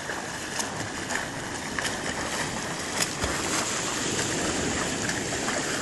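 Sea water splashing and lapping, stirred by a swimming Rottweiler and a person's swimming strokes: a steady wash of water with small scattered splashes.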